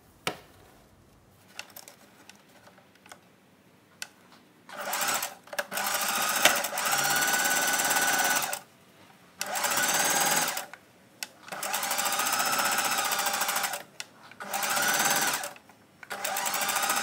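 Singer Heavy Duty 4432 sewing machine stitching a seam through jute burlap, running in about five spurts of one to three seconds each with short stops between. The first third is quiet apart from a few small clicks, and the stitching starts after that.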